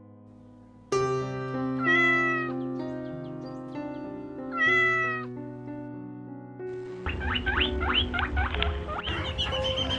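A domestic cat meows twice, two drawn-out calls a few seconds apart, over soft background music with held notes. From about seven seconds in, baby chicks peep in quick, rapid chirps.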